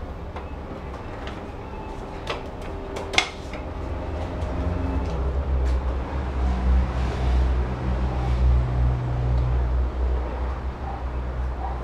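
Metal tools clinking against an automatic transmission on a workshop stand, one sharp clink about three seconds in. A low steady mechanical hum swells from about halfway through while the transmission is handled and turned.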